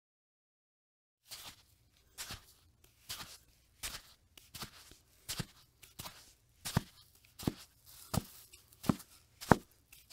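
Footsteps walking at a steady pace, about a dozen crisp crunching steps that grow louder as they approach.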